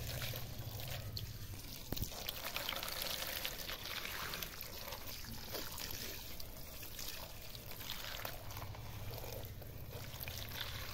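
A thin stream of water pouring steadily onto a plastic toy tractor and splashing into a muddy puddle.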